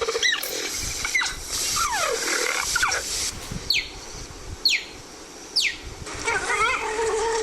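Leopard sound-effect calls: several falling squeal-like cries, then three sharp, high, falling chirps about a second apart, then warbling calls near the end.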